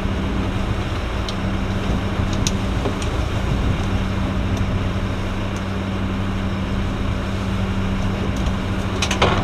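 Sport-fishing boat's engine running steadily at trolling speed: a low, even hum under the hiss of the wake and wind. A few light clicks, with a cluster near the end.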